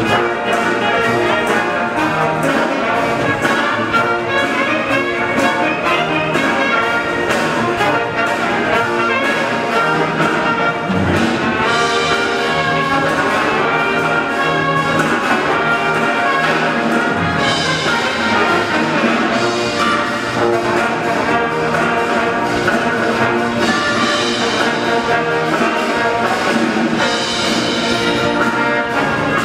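Military band playing, with brass instruments leading.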